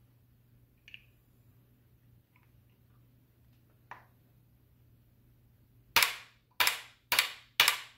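A hammer striking the end of a flathead screwdriver held in an AK rear sight leaf's notch, driving it down to knock the leaf out of its base. Four sharp blows come in quick succession, about two a second, in the last two seconds, each ringing briefly; before them there are only a couple of faint clicks.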